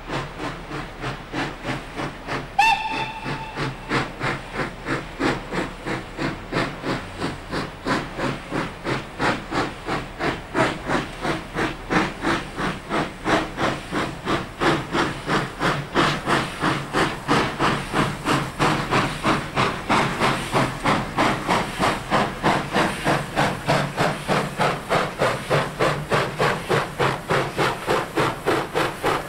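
Steam locomotive 3112, a New South Wales C30 class 4-6-4 tank engine, working a passenger train with a steady, even chuffing of exhaust beats, about three a second. A short whistle blast sounds about two and a half seconds in.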